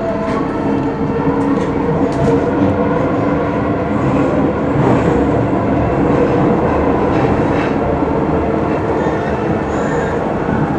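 Docklands Light Railway train running between stations, heard from inside the carriage: a steady rumble of wheels on rail with a constant motor hum, and a few sharp clicks about two seconds in.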